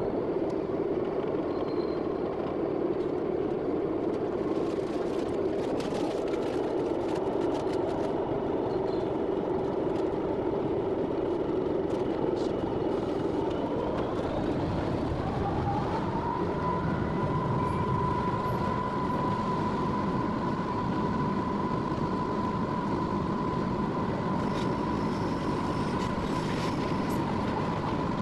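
Class 66 locomotive's EMD two-stroke V12 diesel engine heard from inside the cab, running under power over the rails. About halfway through, its whine rises to a higher pitch and holds, the jet-like sound the class is known for.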